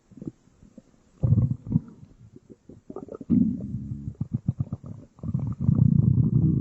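Human stomach growling, played back at half speed so it sounds low and drawn out: scattered gurgles and bubbling clicks, a loud growl about a second in, another about three seconds in, and a long rumble starting about five seconds in.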